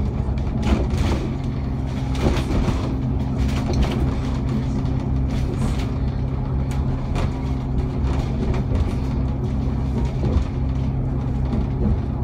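Alexander Dennis Enviro500 MMC double-decker bus cruising steadily, heard from inside: an even engine drone with road noise and scattered light rattles and clicks.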